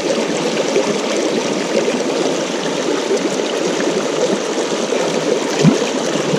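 Rocky mountain trout stream flowing steadily, a continuous rush and burble of water, with one brief thump near the end.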